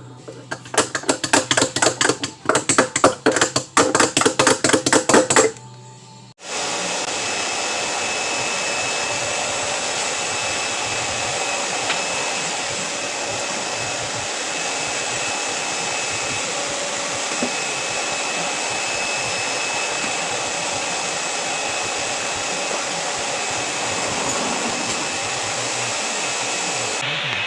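Rapid hammer blows on hot steel, about four to five a second, for roughly five seconds. Then a steady, loud motor whir takes over and runs on.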